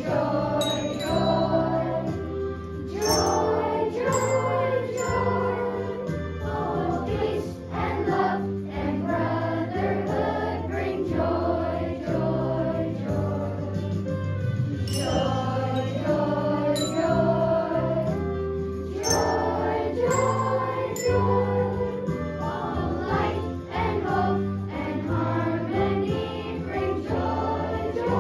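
A children's choir singing over instrumental accompaniment, with steady low notes under the voices.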